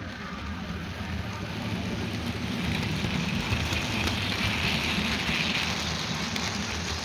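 OO gauge model freight train running along the track: the rumble of the wagons' wheels on the rails and the locomotive's motor hum. It grows louder through the middle and eases a little near the end.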